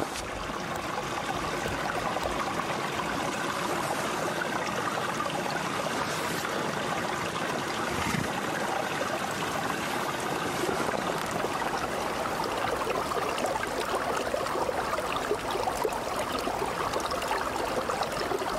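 Small mountain creek running over rocks, a steady rush of flowing water.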